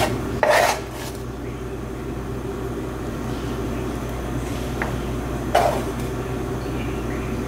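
A plastic spatula scraping chicken pieces in a frying pan and onto a plate, two short scrapes about half a second in and again near six seconds, over a steady low hum.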